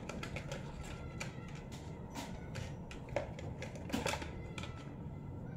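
A plastic doll being scrubbed and handled with a toy bath scrubber over a plastic bucket: irregular soft rubbing with many small clicks and knocks.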